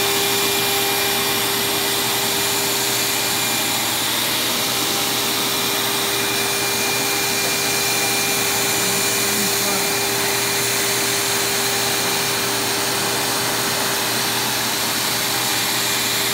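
CNC router's HSD spindle running under load as it cuts shapes out of a sheet, a steady whine over a loud, even rush of air from its dust extraction.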